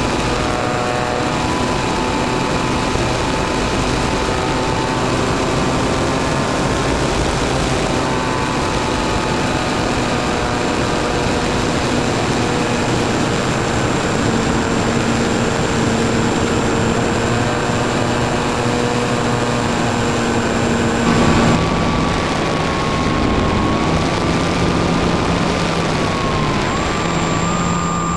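Motor and propeller of a small aircraft running steadily, heard up close from a camera on board, over a continuous rushing noise. The pitch of its tones shifts now and then and changes abruptly about three quarters of the way through, as the throttle changes.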